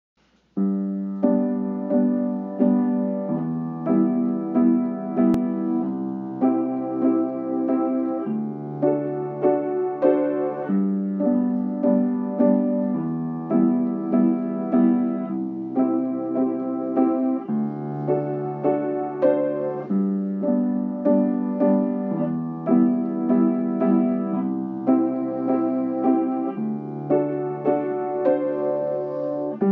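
Slow solo piano music: a standard pop chord progression in G, with a chord struck about once a second over a bass note that changes every couple of seconds.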